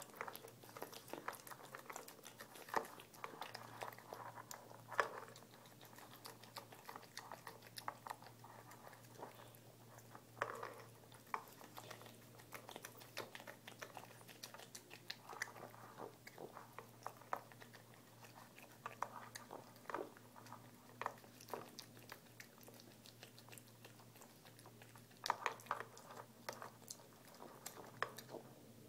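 Tabby cat eating dry kibble, a long, irregular run of small crisp crunches and chewing clicks, louder in short clusters now and then.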